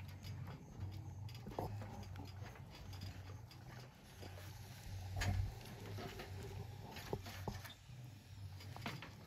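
Wooden stirring stick working stiff ugali in an aluminium pot: irregular knocks and scrapes against the pot, the strongest about five seconds in, over a low steady hum.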